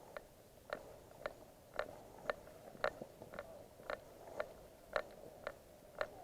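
Steady footsteps, about two a second.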